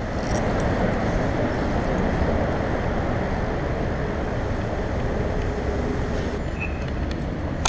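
Steady road-traffic noise under a concrete overpass, mixed with wind rumble on the action camera's microphone. The noise comes up sharply at the start and then holds.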